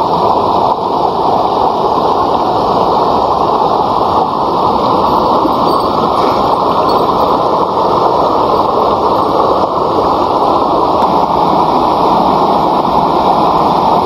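A steady, loud rushing noise that does not change or break.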